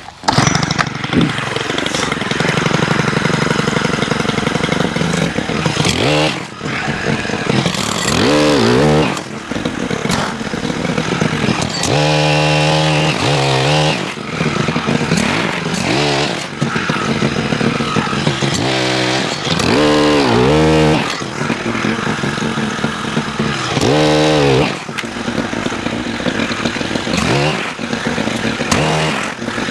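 Stihl HT103 gas pole saw's small 4-MIX engine running at high throttle while cutting branches, revving up and dropping back several times.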